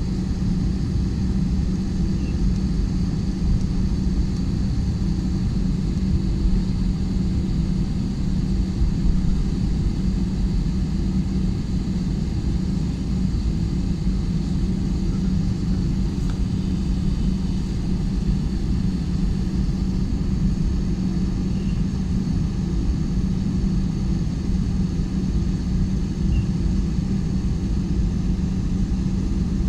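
Airliner cabin noise while the plane taxis to the runway: a steady low rumble with a constant hum and a faint high whine from the engines.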